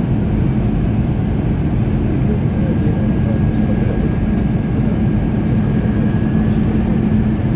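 Steady cabin noise of an Airbus A321 on approach: engine and airflow noise with a low steady hum and a faint high whine that comes and goes.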